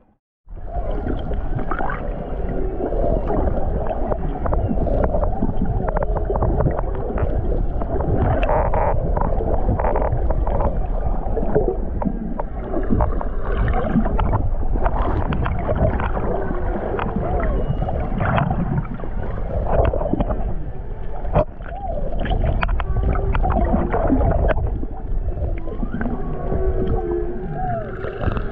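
Humpback whale song heard underwater: a dense, continuous chorus of moans and gliding whoops and squeals, with scattered clicks, starting abruptly just after the start.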